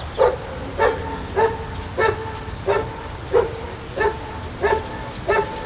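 A dog barking steadily and rhythmically, about nine barks at an even pace of roughly three every two seconds.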